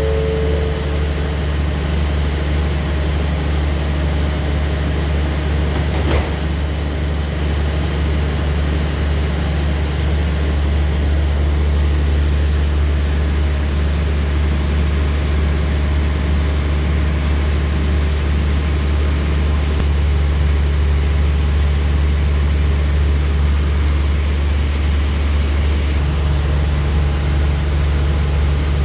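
Steady low drone of a standing diesel passenger train's engine idling. The last note of a falling chime fades out in the first second.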